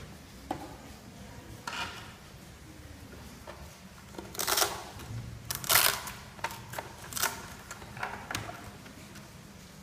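Hands working on the hull and hatch cover of an RC racing boat at the battery compartment: a series of short clicks, scrapes and rustles. The loudest two, each about half a second long, come a little before and just after the middle.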